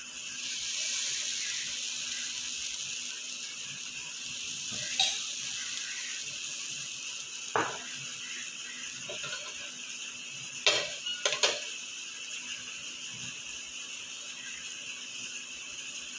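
Semolina pancake batter sizzling steadily on a hot oiled tawa right after it is poured, with a few sharp clicks of a utensil against the pan around the middle.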